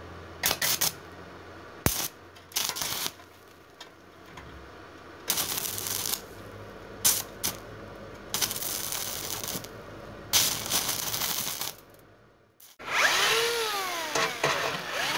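Stick welder laying short tack welds to attach small flat-bar handles to a steel stove door: a run of crackling bursts, each up to about a second and a half long, with pauses between. Near the end a power tool starts and runs, its pitch rising and falling.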